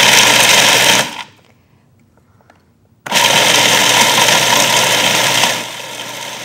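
Food processor with an S-blade grinding raw almonds and dried coconut. It runs, stops about a second in, and starts again about two seconds later. It is quieter for the last second.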